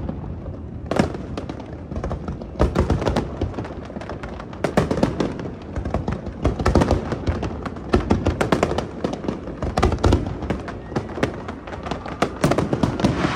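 Fireworks display: aerial shells bursting in quick, irregular succession, many sharp bangs a second overlapping into a continuous barrage.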